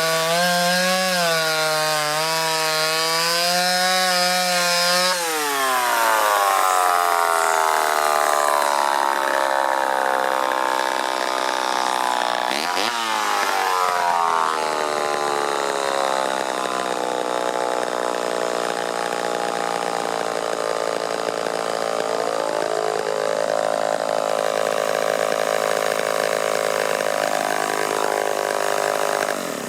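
Homelite Super XL Automatic two-stroke chainsaw cutting a log. For about five seconds the engine runs low and wavering, pulled down in the cut. It then rises sharply in pitch and runs at high revs, dipping briefly now and then, before stopping abruptly at the end.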